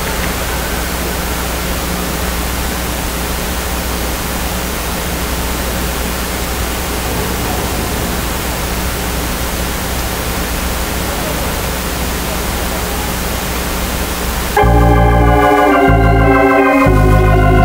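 Steady, even hiss with a low hum, then organ music starts suddenly near the end, playing held chords.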